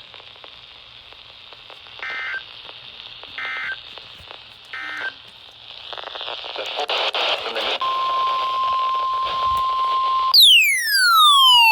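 Weather radio over a steady hiss of static, sending the three short EAS end-of-message data bursts about a second and a half apart. The static then swells, and a steady 1050 Hz warning alarm tone sounds for a few seconds. Near the end it is cut off by a loud falling, siren-like wail.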